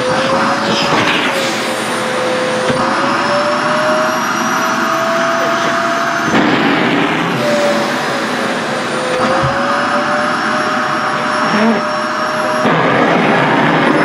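SHARP EC-KP7F-A vacuum cleaner running with a steady rush of air and a motor whine that slowly rises and falls in pitch, the sound changing abruptly about six seconds in and again near the end as the nozzle works on the skirt fabric.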